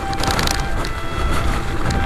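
Mountain bike ridden over a rough dirt and mud track, heard from on board: tyre and frame noise with frequent rattling clicks over a steady low rumble of wind on the microphone.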